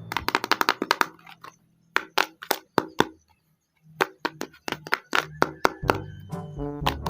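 Rapid sharp clicks and cracks of hard plastic being handled, coming in quick runs with short silent pauses between them. Music comes back in near the end.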